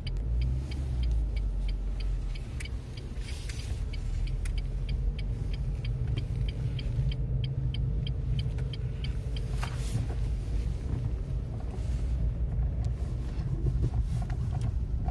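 Inside a Renault Mégane II driving slowly, the road and engine rumble is steady. For about the first two-thirds there is a regular light ticking. A few single knocks come through: this is the front-suspension knock on small bumps that the owner is chasing, which a mechanic put down to worn steering rods.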